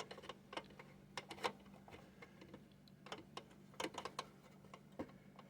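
Light, irregular clicks and ticks as a long screw is turned into a nut in a fare box's mechanism, with a steady low hum underneath.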